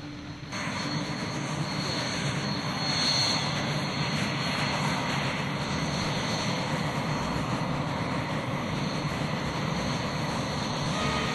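A SEPECAT Jaguar's twin Adour jet engines running as the aircraft taxis: a steady, loud roar. It comes in abruptly about half a second in and swells briefly about three seconds in.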